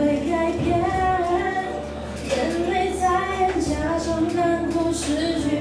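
A woman singing a pop duet into a microphone over musical accompaniment, her voice carried on held, gliding notes.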